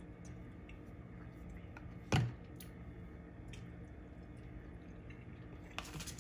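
A plastic squeeze bottle squirting sauce: one short, wet squish about two seconds in, over a low steady background hum.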